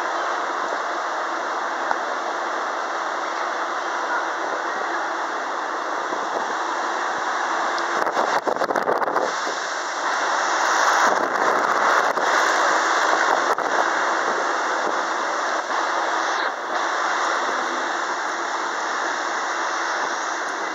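MBTA Red Line subway train pulling into an underground station: a steady rushing noise that grows louder about halfway through as the cars come alongside, with a quick cluster of clicks around eight seconds in.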